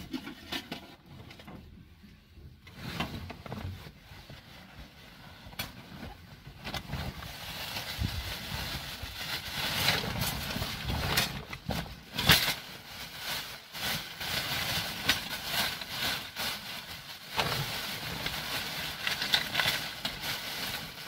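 Plastic and fabric bags rustling and crinkling as gloved hands rummage through them, with small knocks and clicks from the objects inside. It is quieter for the first few seconds, then grows louder and busier, with one sharp knock a little past the middle.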